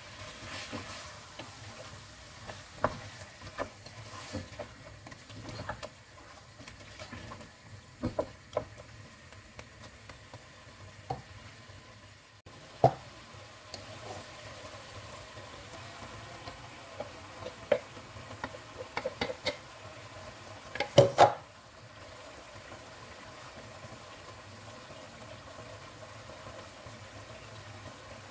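Lamb pieces with onion and garlic-ginger paste sizzling in a pot while a wooden spoon stirs them, knocking now and then against the pot, with a brief flurry of louder knocks later on over a steady frying hiss.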